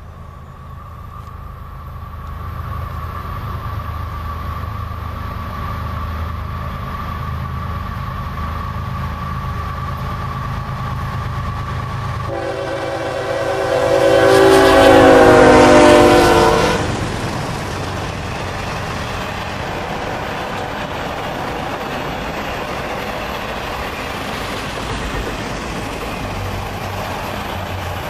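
A diesel freight locomotive approaching with a rising engine rumble, then its air horn sounding one long blast of about four seconds as it passes. The autorack cars behind it roll by with steady wheel-on-rail noise.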